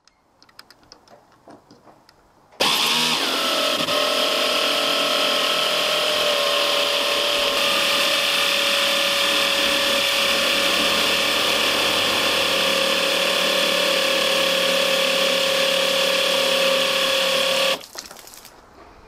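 A 775 DC motor driving a 3D-printed external gear pump while it pumps water. It switches on suddenly a couple of seconds in, its whine dipping briefly in pitch as it gets going, runs steadily for about fifteen seconds, then cuts off. Faint clicks come before it starts.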